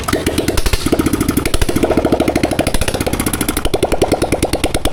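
Royal Enfield Bullet BS6's single-cylinder engine running with its exhaust bend pipe removed, so it exhausts straight from the open port. It gives a loud, rapid train of sharp exhaust pops.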